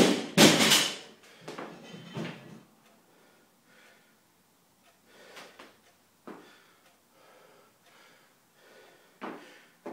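A barbell loaded with bumper plates, set down from a power clean, clatters and rattles on the floor in the first second, then settles. After that, only a few faint short sounds, such as breaths and small movements, during the rest.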